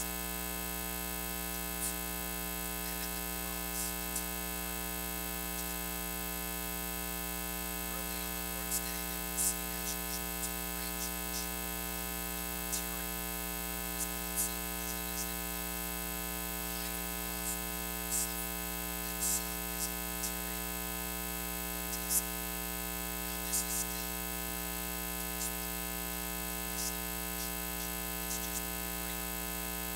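Steady electrical mains hum with a buzz of many overtones, unchanging throughout, with scattered faint crackles and clicks on top.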